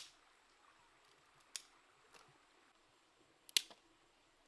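A few sharp snaps of dry wood at a small open fire, four in all, the last a quick double snap, over a faint steady hiss.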